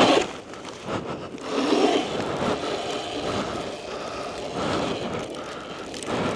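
Sur Ron electric dirt bike pushing through deep snow: a faint electric motor whine under a steady rushing noise of wind and churning tyres, swelling and easing as the throttle works.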